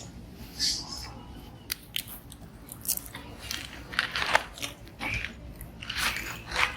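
Macaque chewing and crunching food: irregular crisp bites and crunches, coming more often near the end.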